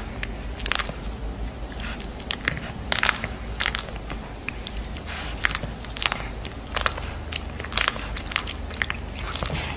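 Domestic cat biting and chewing a rat, with irregular sharp crunches.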